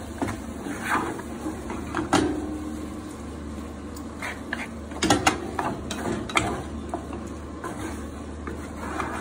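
Wooden spatula stirring and tossing spaghetti carbonara in a frying pan: irregular scrapes and knocks against the pan, sharpest about two seconds in and again around the middle, over a steady low hum.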